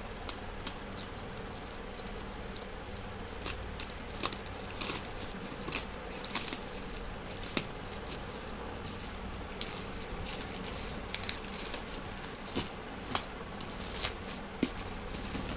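A plastic courier mailer being slit with a utility knife and torn open, crinkling with scattered sharp crackles and clicks at irregular intervals; near the end the knife blade scrapes along a cardboard box.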